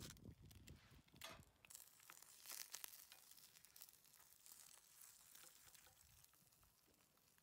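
Eggs frying in a pan with a faint sizzle and crackle, broken by a few soft clicks of the pan and spatula.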